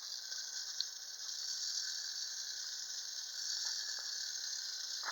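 Clockwork spring motor of a 1950s tin wind-up jump-rope toy running after being wound three turns: a steady high whir, with a few faint ticks from the mechanism.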